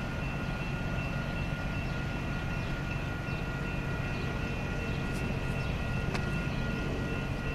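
Steady drone of a diesel commuter train: a low engine hum with a few thin, steady high tones above it. Two faint ticks about a second apart near the end.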